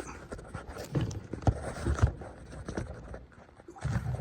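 Handling noise: scraping and rustling broken by several small clicks and knocks, the sharpest about one and a half and two seconds in.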